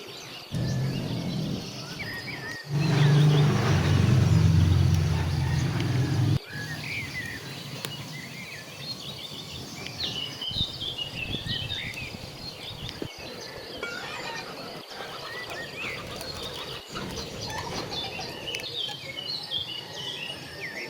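Small birds chirping repeatedly in the background. For the first six seconds a loud low rumbling noise runs under them, then cuts off sharply.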